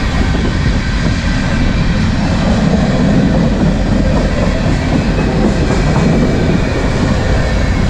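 Freight cars of a manifest train rolling past close by: a loud, steady rumble of steel wheels on the rails that goes on without a break.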